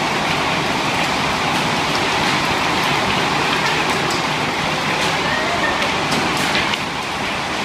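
Heavy fall of small hailstones, about 2.5 cm across, hammering a shopping centre roof: a loud, steady, dense clatter of countless hits.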